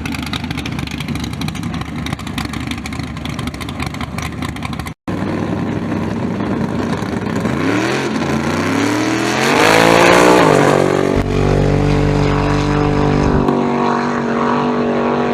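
Drag race car engine: a rough, crackling engine sound, broken by a brief dropout about five seconds in. Then an engine revs up with rising pitch, loudest around ten seconds in, and holds at a steady high pitch after that.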